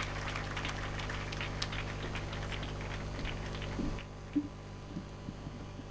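Faint murmur and scattered small noises from a waiting crowd, dropping away about four seconds in, over a steady low electrical hum.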